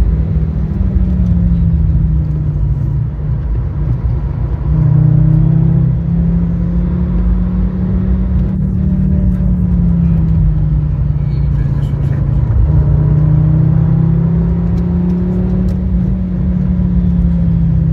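Fiat Stilo Abarth 2.4 20V five-cylinder engine pulling under load on track, its note climbing and falling with throttle and gear changes, dropping away twice before picking up again.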